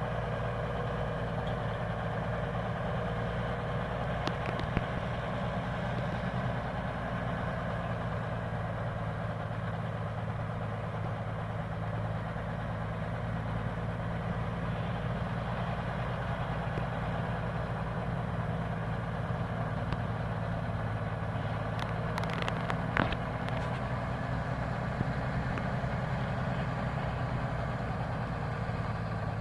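Logging truck engine running steadily at an even pitch, with a few sharp knocks and clatters, the loudest about three-quarters of the way through.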